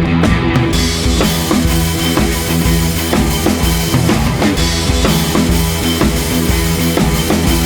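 Background rock music with a full drum kit keeping a steady beat; the cymbals come in about a second in.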